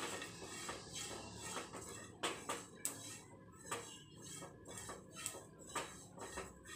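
Silicone spatula stirring and scraping sliced dried coconut and fennel seeds as they dry-roast in a nonstick frying pan: quiet rustling with irregular light taps against the pan.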